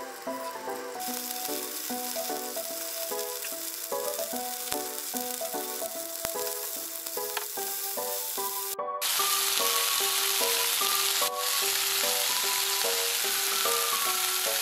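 Shrimp frying in garlic oil in a frying pan, turned with chopsticks: a steady sizzle starts about a second in. After a cut about two-thirds of the way in, the sizzle is louder as shrimp and broccoli fry together. Background music with a simple melody plays throughout.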